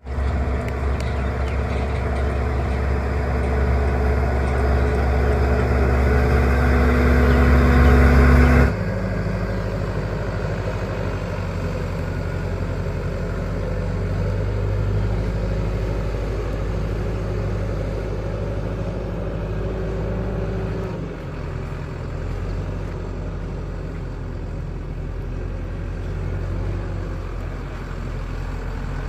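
Heavy diesel machine engine running under load with a steady low drone. About nine seconds in it drops suddenly to a lower, quieter note, and its pitch shifts again about two-thirds of the way through.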